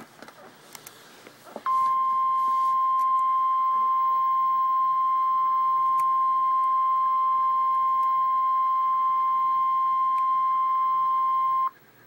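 NOAA Weather Radio 1050 Hz warning alarm tone: one steady, loud single-pitched beep about ten seconds long, starting about two seconds in and cutting off sharply near the end. It is the attention signal that comes before an emergency weather warning.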